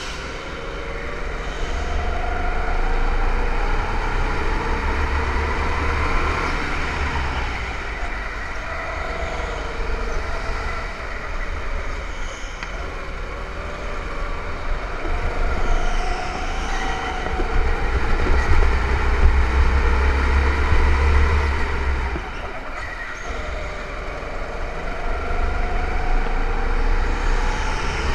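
Go-kart engine running at speed, its pitch repeatedly rising and falling, over a steady low rumble.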